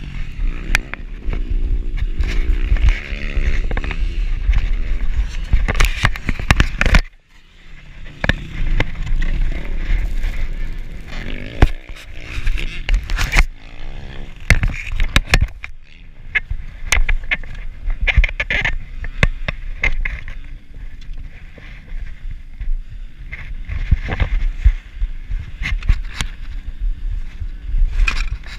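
Dirt bike engine running and revving, mixed with heavy wind buffeting and knocks on a bike-mounted camera. The sound drops away briefly about seven seconds in.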